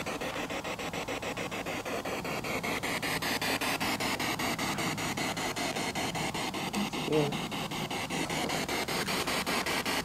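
Spirit box sweeping rapidly through radio stations: a hiss of static chopped into even pulses about six times a second. About seven seconds in, a brief voice-like fragment breaks through.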